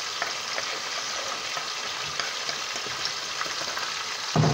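Chopped onion sizzling as it fries in hot oil in a pot, a steady hiss with small crackles. A brief thump near the end.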